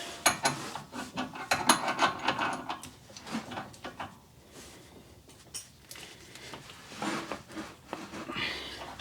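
Scattered clicks, knocks and scraping of hand tools working on a seized tie rod end, busiest in the first few seconds and quieter after.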